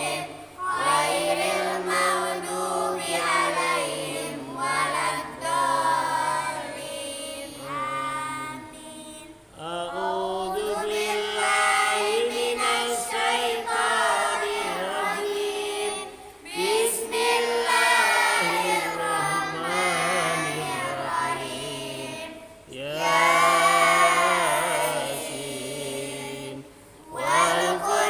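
A small group of girls chanting a devotional recitation together in unison, in long sung phrases with brief breaks for breath.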